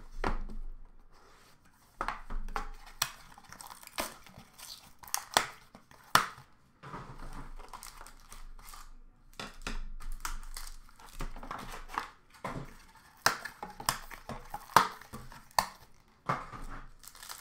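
A Panini Encased basketball box being opened by hand: cardboard and plastic packaging rustling, crinkling and tearing, with scattered irregular clicks and knocks as the pieces are handled and set down.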